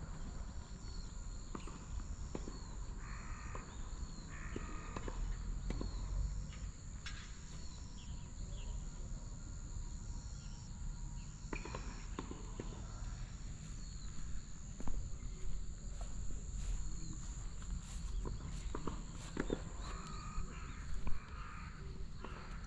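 Outdoor ambience: a steady high-pitched insect drone over a low rumble, with faint short chirps and scattered sharp knocks, the loudest two late in the stretch.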